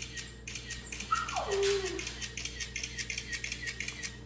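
Camera shutter clicking over and over, about three to four clicks a second. Between one and two seconds in, a voice makes one short sound that slides down in pitch.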